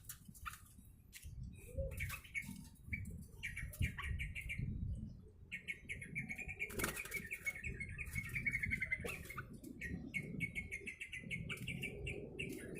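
A caged yellow-vented bulbul (trucuk) chattering in fast runs of short, high notes, the longest lasting a few seconds, mixed with wing flutters and sharp clicks.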